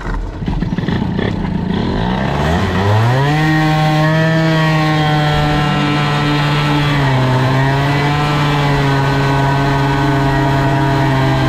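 Two-stroke moped engine, fitted with a Polini kit and a BOOST cylinder head, pulling away under throttle. Its revs climb over about three seconds and then hold steady and high, dropping a little about seven seconds in before holding again.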